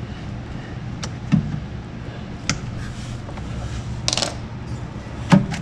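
Scattered sharp clicks and knocks, with a short metallic rattle a little after four seconds, from pliers and wiring being handled against the washing machine's tub and motor bracket, over a steady low hum. The loudest knock comes near the end.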